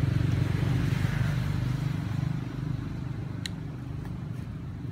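A motor vehicle's engine running, a low rumble that fades after about two and a half seconds, with one sharp click about three and a half seconds in.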